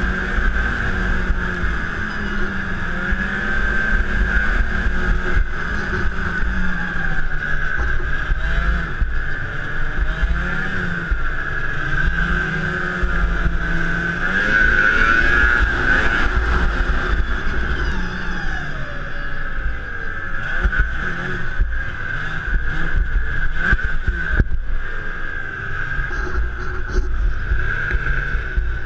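Snowmobile engine running at speed, its pitch rising and falling as the throttle changes, with a steady high whine and a low rumble underneath.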